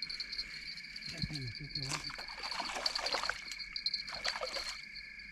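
Crickets chirping steadily in a continuous chorus. In the middle come a few seconds of noisy rustling and splashing at the water's edge as a fish is landed.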